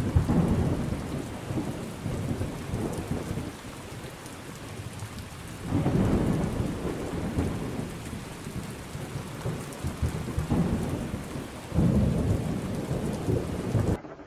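Thunderstorm: steady rain with rolling thunder that swells into deep rumbles several times, about six seconds in and twice near the end, then cuts off suddenly just before the end.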